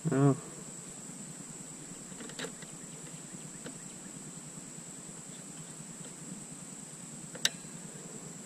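Steady high-pitched insect drone, with a short grunt at the start and two faint clicks, one about two seconds in and a sharper one near the end.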